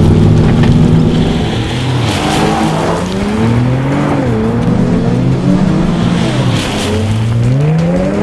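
Nissan 370Z's V6 engine through an XFORCE twin 2.5-inch cat-back exhaust with X-pipe and dual rear mufflers, giving a deep sports tone. The pitch holds steady, climbs and falls back about three to four seconds in, holds again, then climbs once more near the end.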